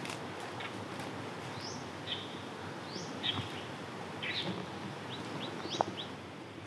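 Small birds calling in forest, a string of short high chirps, some sweeping upward, over a steady background hiss. A single sharp knock near the end.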